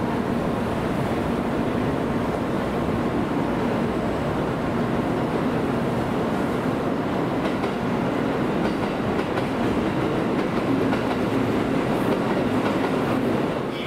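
Tokaido Shinkansen train running noise: a steady rushing sound with a humming tone, growing a little louder toward the end.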